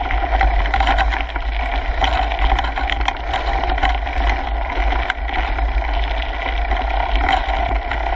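Kona Coiler full-suspension mountain bike rolling along a dirt and gravel trail, heard from a handlebar-mounted GoPro: steady wind rumble on the camera, tyre noise from the trail surface, and frequent clicks and rattles from the bike over the bumps.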